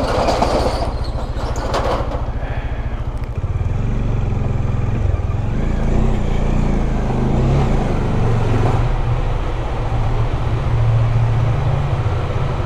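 Motorcycle engine running at low speed as the bike is ridden slowly, its rumble growing louder a few seconds in. Two short louder noises come in the first two seconds.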